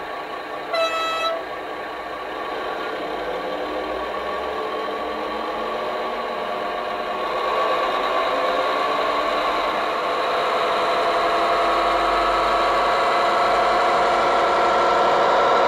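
A Dapol Class 21 model locomotive's DCC sound decoder playing through its small EM1 speaker: a short horn blast about a second in, then the diesel engine sound building, rising in pitch and growing louder.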